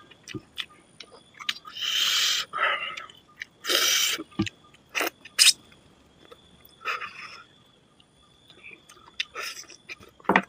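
A man eating rice and chicken curry by hand, with loud close-up chewing and mouth noises in irregular bursts and short pauses between them.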